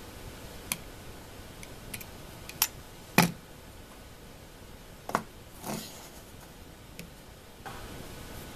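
Scattered sharp clicks of a utility knife trimming a rubber screen-door gasket on an MDF board, with one solid knock a little past three seconds in as the knife is laid down on the board. A few lighter clicks and a short rustle of handling follow.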